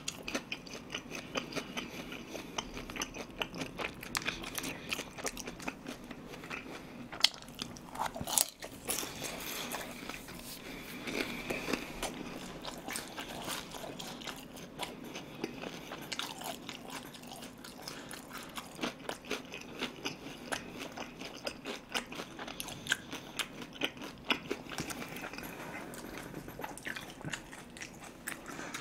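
Close-miked chewing and crunching: a person eating crispy fried sweet-and-sour pork (guobaorou), with many small crunches and mouth clicks throughout.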